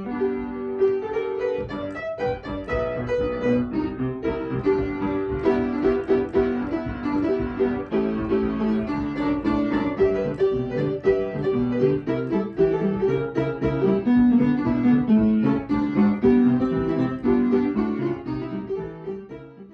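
Intro music led by piano, with a quick run of notes, fading out near the end.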